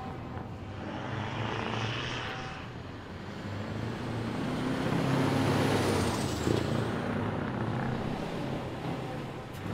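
Scania truck tractors driving out with their diesel engines running, louder in the middle as one passes close by.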